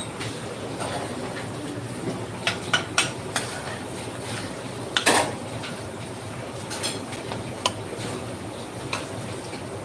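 Metal kitchen utensils clinking and knocking against pots and pans: a scattering of sharp clinks, several close together in the middle, over a steady background noise.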